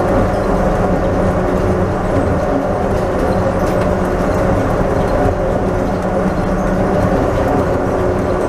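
Bombardier Innovia rubber-tyred airport people-mover train running steadily at speed along its guideway in a tunnel: a constant running noise with a steady multi-tone motor hum.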